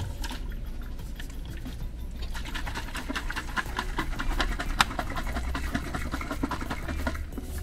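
Two lidded Starbucks travel mugs with a little water inside, shaken hard upside down in a spill test of their lids: a fast, irregular rattling and clatter that starts about two seconds in and stops just before the end.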